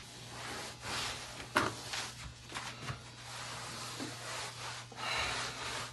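Scrubbing strokes on a greasy kitchen wall, an irregular run of scratchy rubbing sounds, some strokes longer than others, to lift the grease off with grease remover.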